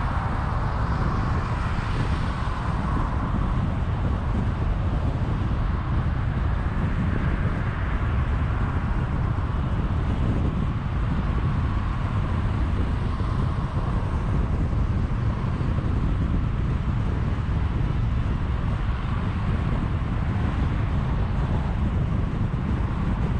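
Steady road noise from a car cruising at about 80 km/h on an expressway: a constant low rumble of tyres and wind with a softer hiss above it.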